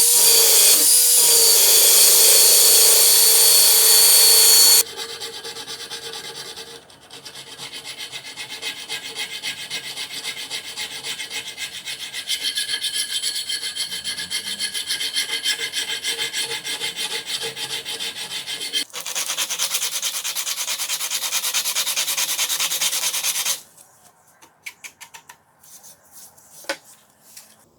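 A power tool runs steadily and cuts off about five seconds in. Then come rapid, repeated rubbing strokes of abrasive work on the screwdriver, growing louder partway through. A few light clicks follow near the end.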